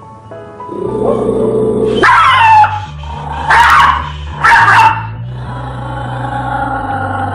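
A dog barking three times, the first bark longer, each call falling in pitch, over background music with a steady bass line.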